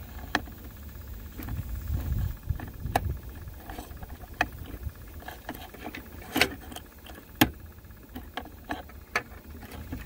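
Irregular clicks and taps of long-nose pliers working the shift cable fitting on a gear shift linkage, over a low handling rumble. The two sharpest clicks come about six and seven seconds in.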